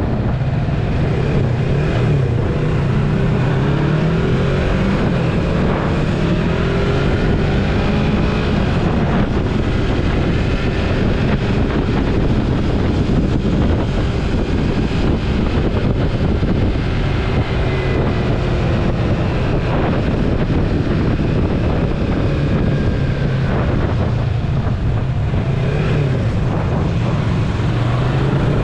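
Yamaha MT-03 motorcycle engine running under way, its pitch rising and dipping several times as the rider works the throttle, over steady wind noise on the microphone.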